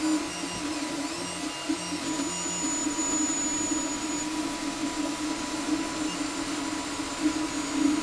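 3D printer running: a steady whirring hum, with motor tones that come and go and shift in pitch.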